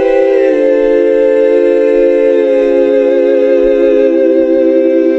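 Voices holding a sustained chord in harmony, a cappella. The chord steps to a new one about half a second in, and the lower parts shift again later.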